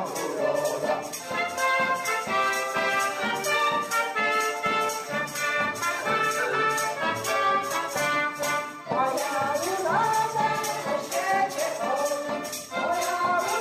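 Polish folk band (kapela) playing an instrumental passage: clarinet and trumpet carry the tune over accordion and double bass, with tambourine and small drum keeping a steady beat.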